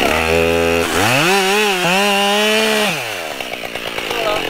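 Husqvarna 572 XP two-stroke chainsaw cutting into a log. About a second in its engine revs up to high speed and holds for about two seconds, then drops back and runs rougher near the end.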